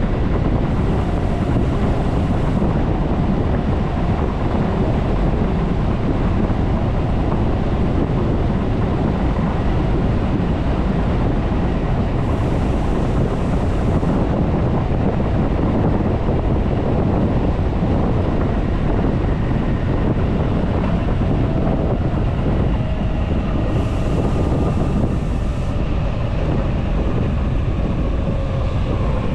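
ÖBB 4024 Talent electric train running along the track while slowing from about 90 to 70 km/h: a steady rumble of wheels on rail mixed with wind noise on the microphone. Faint whining tones join in about three-quarters of the way through.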